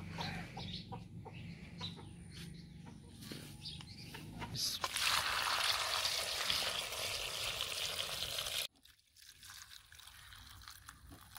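Water poured from a jug into a steel bowl of okra, onions and tomatoes, splashing for about four seconds and cutting off suddenly. Near the end a fainter trickle is heard as water is poured from a small clay cup over green chillies. Hens cluck softly in the first few seconds.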